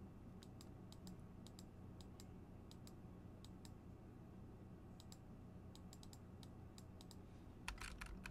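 Faint computer mouse clicks, irregular and a couple a second, from spot-healing skin blemishes one by one, with a quicker, louder run of clicks near the end, over a faint steady hum.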